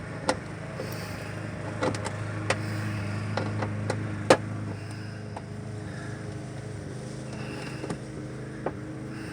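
Ratchet and socket backing out a loose bolt near the headlight: scattered sharp clicks and knocks at irregular intervals, over a steady low hum.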